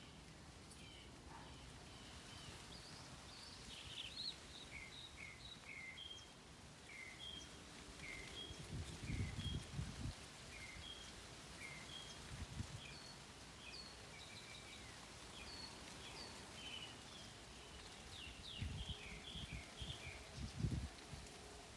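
Several birds calling in the morning: short repeated chirps and whistled notes, some in quick series, over a faint outdoor hiss, with a few low rumbles or bumps about 9 seconds in and again near the end.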